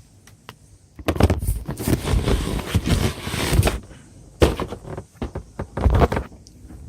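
Cardboard box and packing being opened and handled: a few seconds of rustling and scraping, then several sharp knocks.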